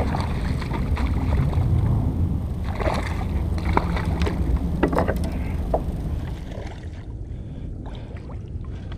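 Water sloshing against a kayak hull under a steady low rumble, while a hooked small herring splashes at the surface. A few sharp splashes and knocks come between about three and six seconds in, then it quietens.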